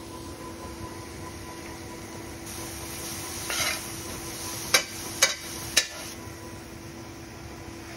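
Chopped vegetables sizzling in a stainless steel frying pan over a steady low hum. They are stirred, the sizzle growing louder from about two and a half seconds in, and the utensil clicks against the pan three times around five seconds in.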